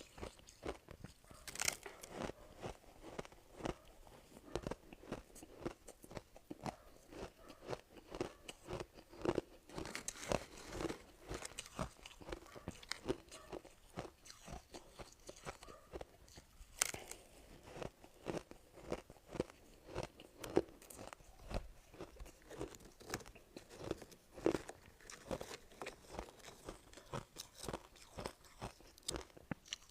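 A person chewing and crunching soft ice cubes close to the microphone, with irregular crisp crunches a few times a second throughout.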